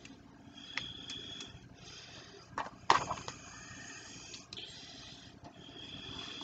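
Hands tearing mushrooms apart and dropping the pieces onto a plastic cutting board of chopped bok choy: a few light clicks and taps, the sharpest about three seconds in, over a faint steady hiss. Near the end, soft rustling as the vegetables are gathered together by hand.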